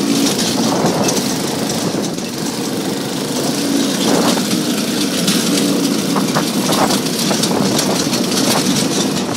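Go-kart engine running continuously as the kart is driven, with a rushing, rattling noise over it.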